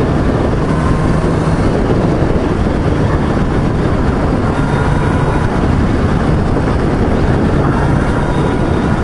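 Motorcycle cruising steadily at expressway speed: heavy wind and road noise with the engine's steady drone underneath, rising and falling slightly.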